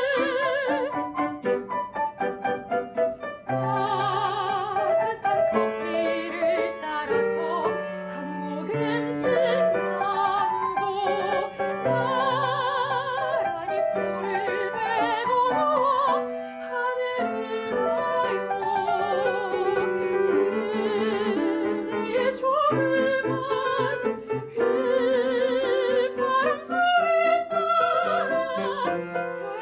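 Soprano singing in operatic style with wide vibrato over piano accompaniment: a classical art song.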